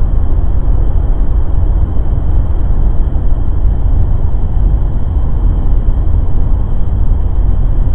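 Loud, muffled low rumble on the action camera's microphone, jagged in level, with the high end cut off throughout.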